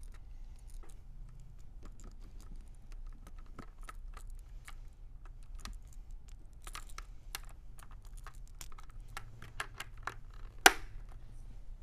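Plastic chin strap buckle and strap being handled on a football helmet: a string of small, irregular clicks and ticks, then one sharp, louder snap about ten and a half seconds in as the strap's snap is pressed onto the helmet post.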